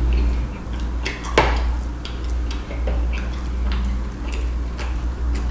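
Close-up eating sounds: scattered sharp clicks of a metal spoon against a glass bowl and of chewing, with one louder click about a second and a half in, over a steady low hum.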